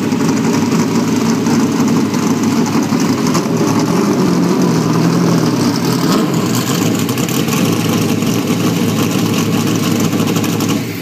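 V8 engine of a Dodge Challenger NASCAR stock car running loud and steady at low revs as the car rolls slowly, its side-exit exhaust unmuffled.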